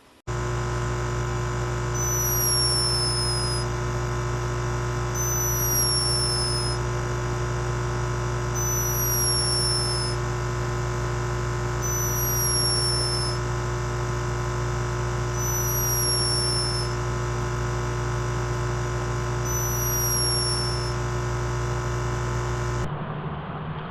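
An animal snoring, with a high whistle falling in pitch on each breath, about every three seconds. It sits over a steady droning hum and cuts off abruptly near the end.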